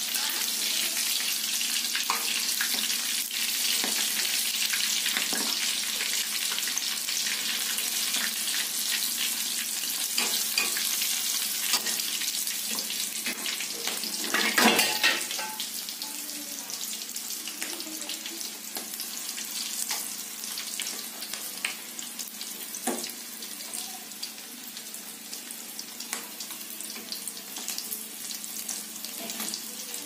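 Whole quail deep-frying in hot oil in a wok: steady sizzling and crackling. There is a brief louder burst about halfway through, after which the sizzle runs a little quieter.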